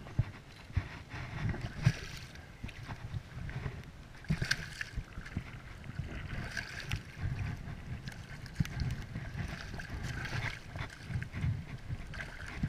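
Shallow water sloshing and splashing close by, with irregular low rumbling of wind on the microphone.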